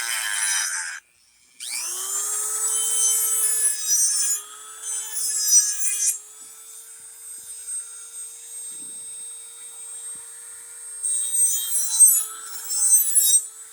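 Dremel rotary tool spinning up to high speed with a rising whine, then grinding the edge of a steel lawn mower blade in two spells of harsh scraping, running steadily between them.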